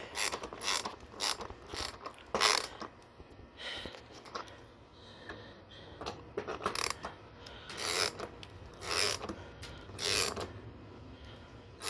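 Ratchet wrench with a 10mm socket clicking in runs of quick strokes, with short pauses between, as a bolt is snugged down.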